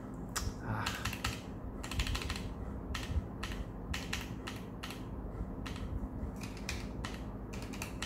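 Keystrokes on a Keychron K1 v4 low-profile mechanical keyboard with Gateron red linear switches: irregular clacking key presses, some single and some in quick runs of several.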